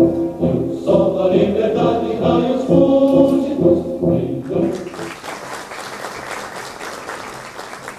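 A large standing audience singing together in unison, the song ending about five seconds in, followed by applause that fades away.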